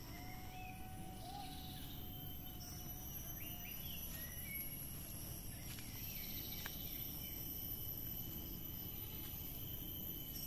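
Outdoor ambience: a steady high-pitched insect drone with scattered short bird chirps over a low, even background rumble.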